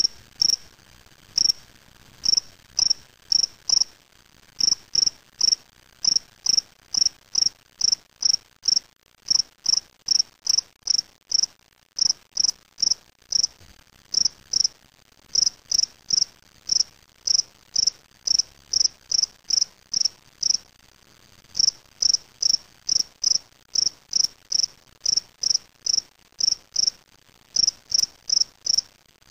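Male spring field cricket (Gryllus veletis) singing its calling song: short, high chirps about two a second, made by rubbing its wings together, breaking off for a second now and then.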